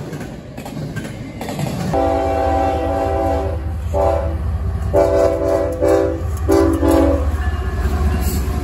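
Freight cars rolling past with steady wheel-on-rail noise, then a CSX diesel locomotive's air horn sounding a chord in about four blasts with short gaps, over the low rumble of the engine. The horn is the warning for a grade crossing.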